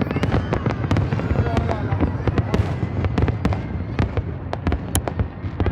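Aerial fireworks bursting in quick succession: a dense, continuous run of sharp bangs and crackles over a low rumble.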